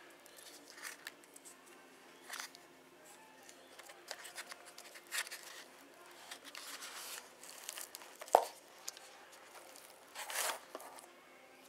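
Handling noise of a tape-wrapped LiPo battery pack and its wires being moved around a foam RC plane's battery bay: scattered rustling and crinkling, with one sharp click about eight seconds in.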